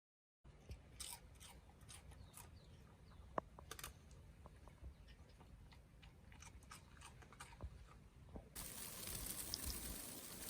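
Faint, scattered crunching and clicking of snow. About eight and a half seconds in it gives way abruptly to a steady hiss.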